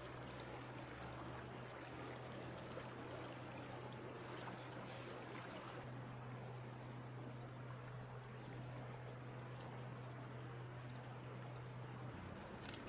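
Steady rushing of flowing water with a low steady hum, and a thin high chirp repeated six times, about once a second, in the second half. A sharp click comes near the end.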